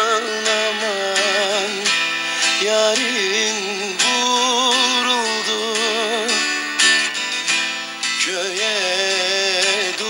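Music with plucked string instruments and a wavering, ornamented melody line.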